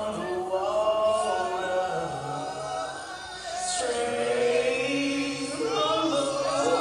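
Vocal music with several voices singing held, wavering notes together, like a choir; it comes in suddenly at the start.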